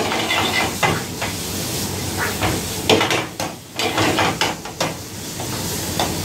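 Diced onion and capsicum being stir-fried in a metal wok over a gas flame: steady sizzling, with the metal ladle scraping and clanking irregularly against the pan.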